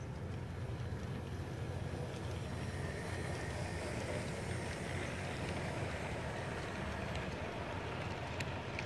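Large-scale garden model train running past on its track: a steady rolling rumble of wheels and motors on the rails, a little louder as the locomotive passes close, with a few sharp clicks near the end.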